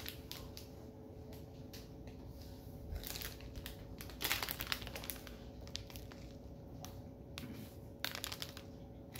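Soft, irregular crunching and crinkling: a crunchy sesame pretzel snack and its packet being handled, broken and eaten, in scattered crackles with a few louder clusters.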